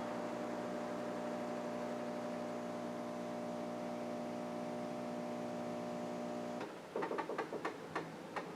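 Miele CVA 6800 built-in coffee machine running with a steady hum as it prepares a caffè macchiato. The hum cuts off about two-thirds of the way in, followed by a scatter of light clicks and ticks.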